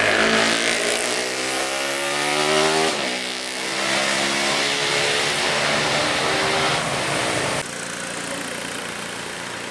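A bus's telolet basuri horn playing a tune of held multi-tone notes, over the bus's engine and road noise. The horn cuts off suddenly near the end, leaving the traffic noise.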